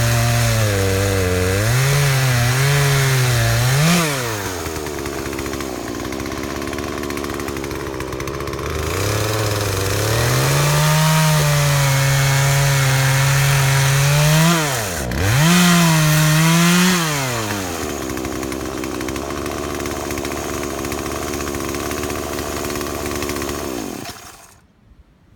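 Poulan chainsaw ripping lengthwise through a red oak crotch block: the engine runs hard with its pitch wavering under load in the cut, eases off to a lower steady speed twice between cuts, and shuts off near the end.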